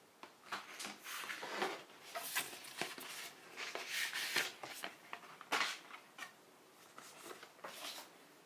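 Stiff printed cards and card packaging being handled by hand: a run of irregular papery rustles, slides and light taps, busiest in the middle and thinning out near the end.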